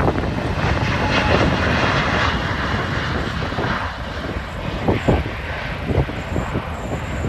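Airbus A380's four Rolls-Royce Trent 900 jet engines at takeoff thrust as the airliner climbs out after liftoff: a loud, continuous jet roar that eases slightly over the last few seconds as it pulls away.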